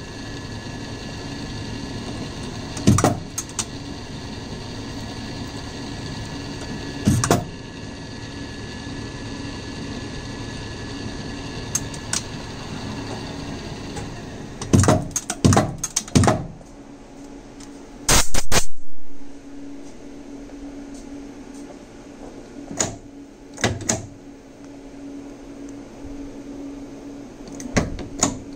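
Small precision lathe in a machine shop, its motor humming steadily while metal tooling gives sharp knocks every few seconds as a tiny stainless-steel screw is broached and chamfered by hand. About two-thirds of the way through, the hum drops to a fainter steady tone and a louder, brief noisy burst follows.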